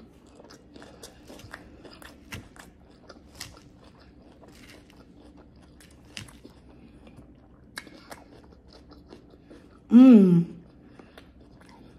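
Close-miked chewing of a rice bowl with carne asada, lettuce and sour cream: many small, quiet wet clicks and crunches. About ten seconds in comes a loud hummed "mmm" of approval, falling in pitch.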